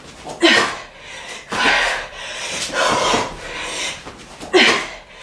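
A woman breathing hard from exertion during burpees, with four forceful exhalations at a steady pace of roughly one every second and a bit. Two of them carry a short voiced grunt.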